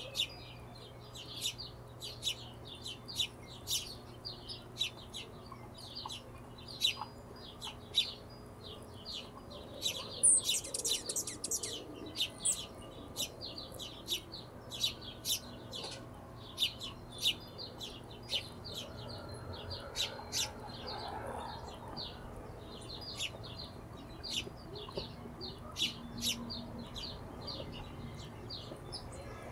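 Hummingbirds giving short, high chip calls, one every fraction of a second, with a quick dense flurry of chips about ten seconds in.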